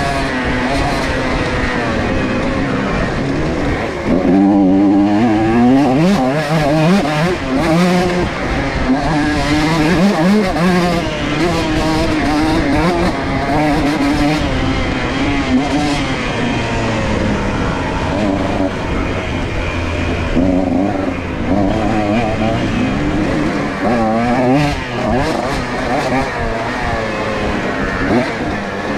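125cc two-stroke dirt bike engine ridden wide open, its pitch climbing and dropping again and again as the throttle is worked and gears change.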